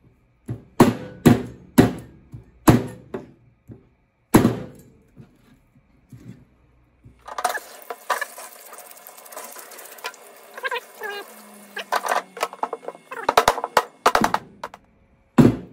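A Chinese cleaver chops through a yellowtail head on a plastic cutting board: about six sharp, heavy blows in the first few seconds. Near the end a wooden mallet knocks on the back of the cleaver in a quick run of hard knocks, driving it through the bone.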